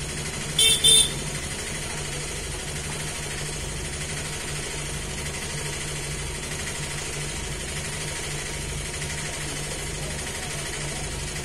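Two short horn toots in quick succession about a second in, over a steady low hum.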